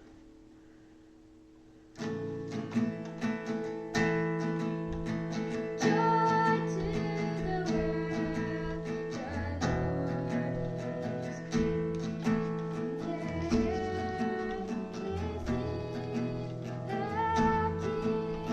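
Acoustic guitar strummed in chords, starting suddenly about two seconds in, with a melody line carried above it: the opening of a Christmas hymn played live.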